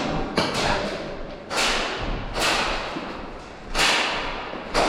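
Airsoft gunfire during a game: about five sharp cracks or impacts roughly a second apart, each trailing off in a half-second echo off a large hall's walls.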